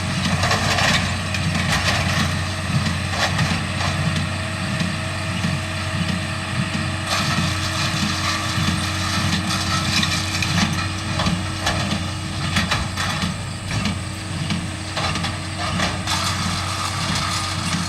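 Tractor engine running steadily while pulling a working hay baler, with a regular rhythmic pulsing and scattered mechanical clatter and clicks.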